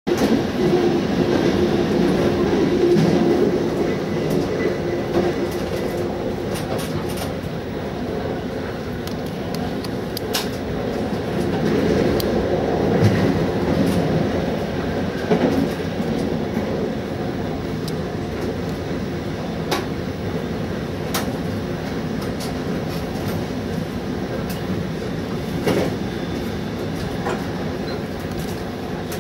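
MI2N double-deck RER electric train running at speed, heard from inside the driver's cab: a steady rumble of wheels on rail, with a few sharp clicks as it passes over rail joints.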